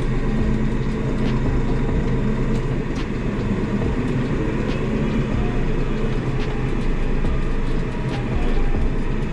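Hurlimann XA90 loader tractor's engine running steadily as it pulls away towing a loaded trailer, heard from inside the cab. A few light clicks and rattles sound now and then over the engine.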